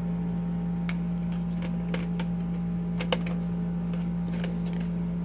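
Scattered light clicks and taps from the gray plastic cable drum of a Ridgid K-45AF-5 drain gun as it is handled and the coiled steel cable inside is touched. A steady low hum runs underneath.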